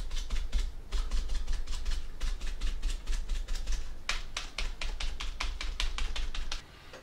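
Artist sponge loaded with blue craft paint dabbed rapidly against model wall panels taped to cardboard, a quick run of soft taps several times a second that stops near the end. The sponge is blotting on paint to weather the siding.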